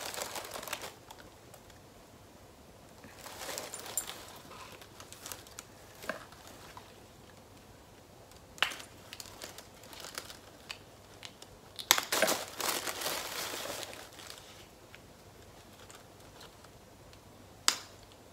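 Paper packaging crinkling and rustling in short spells as fingers work at a small sample packet, trying to open it, with a few sharp clicks and snaps; the loudest rustling comes about two-thirds of the way in, and a sharp click near the end.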